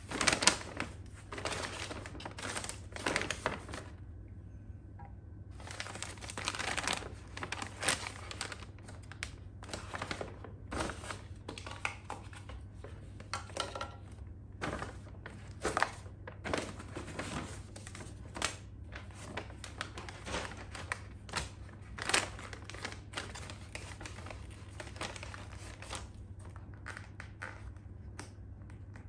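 Brown paper bag rustling and crinkling as food items are taken out and set down on a glass tabletop, with irregular crackles and light knocks and a brief lull about four seconds in.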